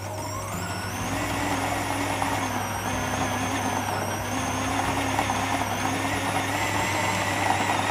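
Electric food processor running, grinding chicken and shrimp with seasonings into a paste. The motor spins up over the first second, then runs steadily with a high whine.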